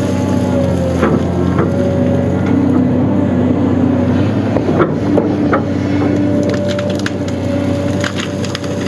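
Cat 336D excavator's diesel engine running steadily under load, its pitch shifting slightly as the hydraulics are worked, while the bucket crushes brush and branches with scattered sharp cracks and snaps of breaking wood, the most of them about five seconds in and again near the end.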